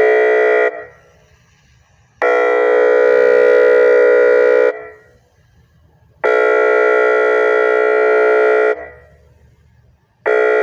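DiamondCat Audio OmniRanger III electronic siren sounding a synthesized air horn tone in loud, steady blasts of about two and a half seconds, separated by pauses of about a second and a half. One blast ends shortly in, two full blasts follow, and a fourth starts near the end. After each blast a natural echo dies away.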